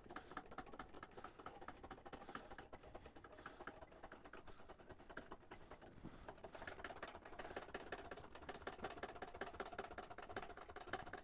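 Faint, rapid clicking from the motorcycle lift's foot-operated hydraulic jack as it is pumped to raise the bike.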